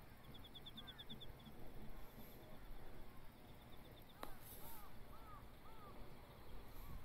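Quiet outdoor ambience with faint bird calls: a rapid high trill recurs in short runs, and a little past the middle a string of short arched chirps follows a single sharp click.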